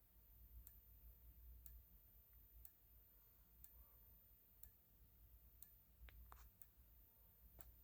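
System Sensor SPSW strobe flashing in alarm, giving a faint click about once a second with each flash. Its speaker is not connected, so no alarm tone sounds. Two extra small clicks come a little after six seconds in.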